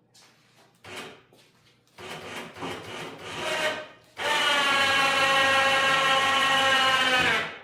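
Scattered rattling and handling noises, then an electric motor runs with a steady whir for about three seconds and stops.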